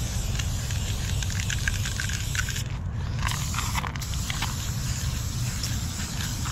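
Aerosol spray-paint can hissing as paint is sprayed, breaking off twice for a moment about halfway through, with a few short crackles over a steady low rumble.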